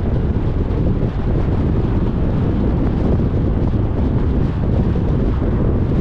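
Wind buffeting the microphone over the steady low rumble of a car driving along.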